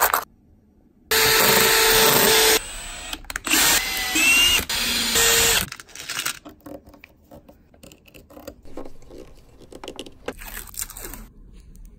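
Power drill running in several bursts of about a second each during the first half, drilling into the plastic battery box. After that come light clicks and rattles of small screws and hardware being handled.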